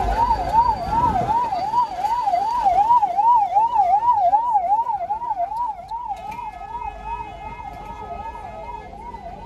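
Emergency vehicle siren in a fast up-and-down wail, about three sweeps a second, growing fainter from about six seconds in.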